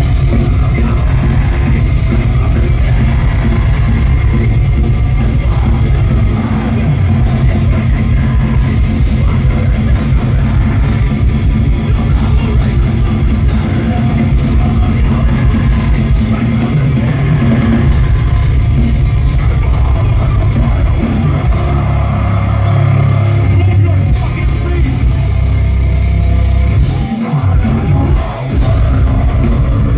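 A live deathcore band playing loud: distorted guitars, bass and drum kit with vocals over them, heard from within the crowd. The bass and drums stop briefly twice near the end.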